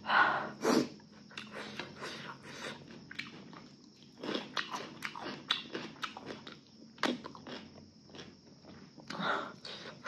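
Close-up eating sounds: chewing and biting food, with a run of small wet clicks and occasional louder bites or crunches, the strongest two within the first second and others about 4, 7 and 9 seconds in.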